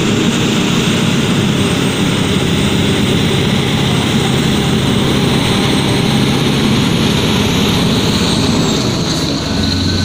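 Scania truck's diesel engine running steadily as it pulls a road train of two tipper trailers past, a constant loud drone with road noise.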